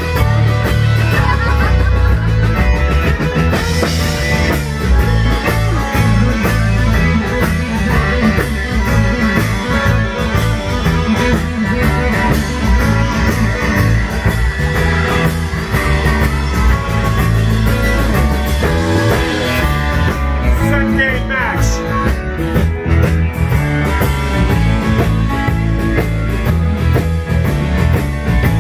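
Live rock band playing a song, an electric guitar carrying the lead over bass and drum kit.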